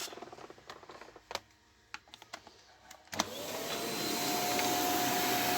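A few handling clicks and knocks, then about three seconds in a Fakir vacuum cleaner's motor switches on and spins up. Its whine rises, then holds steady over a loud rush of air, as the cleaner runs after its power cord has been replaced.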